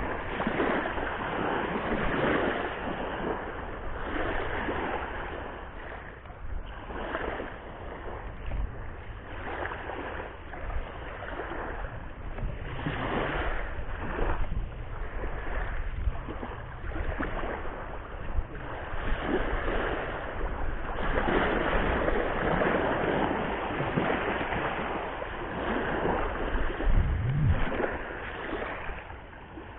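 Surf washing onto a beach, rising and falling in swells, with wind on the microphone.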